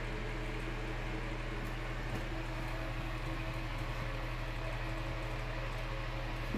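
Steady mechanical hum of a running appliance, with a few faint clicks.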